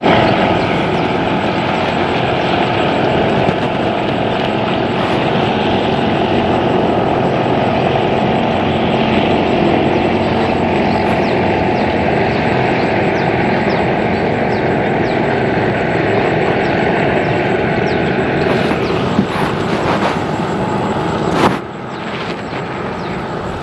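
Small outboard motor running steadily as the boat moves along. Near the end there is a sharp knock and the motor drops abruptly to a quieter running.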